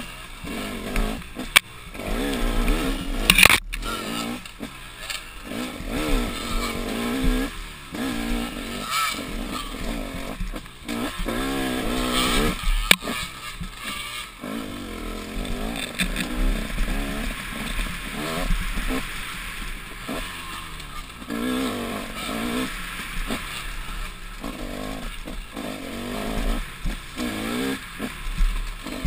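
KTM dirt bike engine being ridden hard, revving up and dropping back again and again as the throttle is opened and chopped. A few sharp knocks from bumps come through, the loudest about three and a half seconds in.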